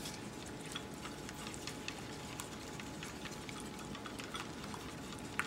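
A whisk beating egg yolks and sugar in a ceramic bowl: light, irregular ticking of the whisk against the bowl, with one sharper click near the end.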